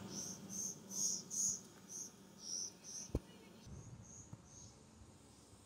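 A cricket chirping, short high chirps about two a second, growing fainter after about three seconds. A single soft thump sounds a little after three seconds in.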